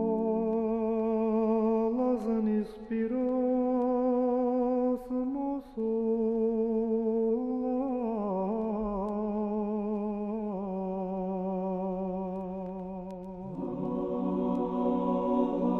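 Vocal music: several voices holding long notes in harmony, with a wavering vibrato in the middle and a fuller chord coming in near the end.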